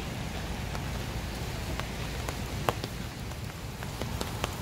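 Rain falling on wet pavement: a steady hiss of rain with scattered sharp drop ticks, over a low rumble.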